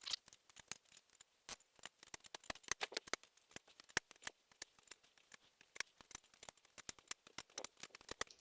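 Ratchet wrench clicking in quick, uneven runs as the 10mm bolts on a mower engine's cover are run down and torqued to 52 inch-pounds.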